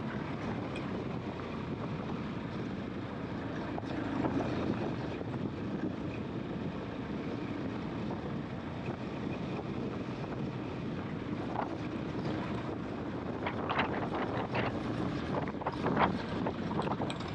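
KTM 500 EXC-F enduro motorcycle's single-cylinder four-stroke engine running steadily while riding, with wind buffeting the microphone. Several sharp knocks come in the last few seconds.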